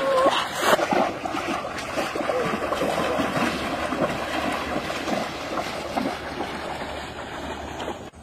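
River water splashing and lapping against a bamboo raft as it moves through the water: a continuous run of small irregular splashes that slowly gets quieter.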